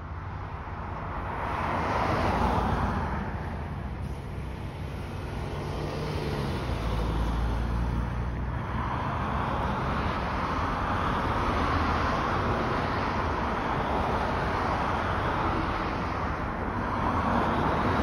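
Whelen WPS-4004 electronic outdoor warning siren sounding during a test, its rotating horn array making the sound swell and fade as it sweeps past: loud about two seconds in, fading, then swelling again from about nine seconds.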